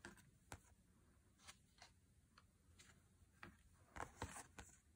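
Near silence with faint, scattered clicks and taps of stiff card being handled: round photo cards shuffled by hand, with a few louder clicks about four seconds in.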